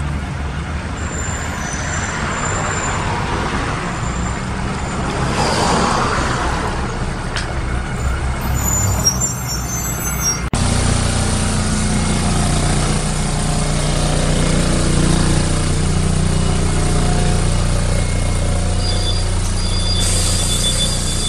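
Karosa B961 articulated city bus drawing up at a stop, with its diesel running and a hiss of air about five to six seconds in. About halfway through, the sound cuts to inside the bus, where the engine runs with a steady low hum as it drives, and a high intermittent tone sounds near the end.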